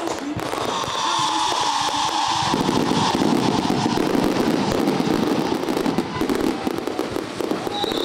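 Aerial fireworks display: rapid, continuous crackling and popping of shells bursting overhead, heaviest from about halfway in. Over the first few seconds a high whistle-like tone slides slowly down in pitch.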